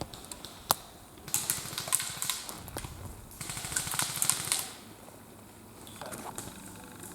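Rustling and crackling, as of dry brush and twigs underfoot, in two stretches of about two seconds and one second, with a single sharp click just before.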